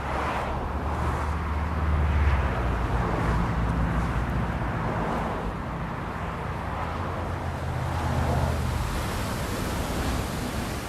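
Road traffic by the sea: cars passing, their low tyre and engine rumble swelling twice, over a steady wash of ocean surf.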